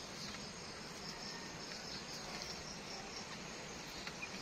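Insects chirping steadily and faintly: a high-pitched pulsing trill of several beats a second.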